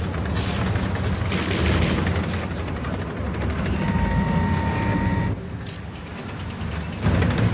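Science-fiction battle sound effects: a heavy low rumble of war machines with booms and bursts of gunfire. A steady whine sounds from about four seconds in and stops a second later. The din then drops briefly and comes back loud near the end.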